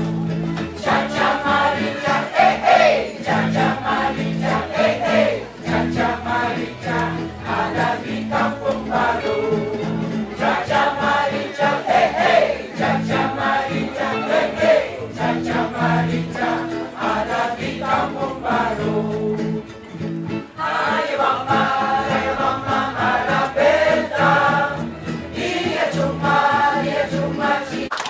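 A choir singing a song with live instrumental accompaniment, the voices carried over a steady bass line, with a short break between phrases about twenty seconds in.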